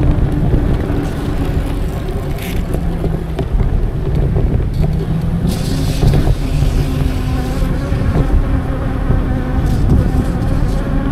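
Riding noise from a moving e-bike: steady wind rumble on the microphone with tyre and road noise and a faint steady hum. Brief louder rushes of hiss come about two seconds in and again around six seconds.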